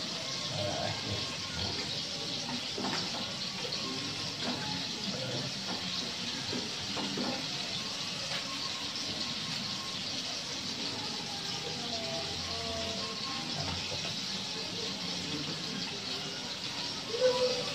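Squash, string beans and dried fish sizzling and simmering in a pan, a steady hiss. A louder wavering call, like a dove cooing, comes near the end.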